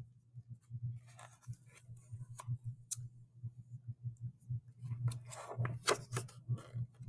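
Pages of a picture book being turned and handled: soft paper rustles and flicks, more of them in the second half, over a low steady hum.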